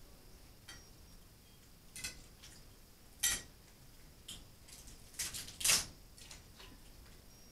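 Scattered short cracks and clicks of seafood shells being broken and handled while eating, with a couple of louder crunches a little after three seconds in and again around five and a half seconds.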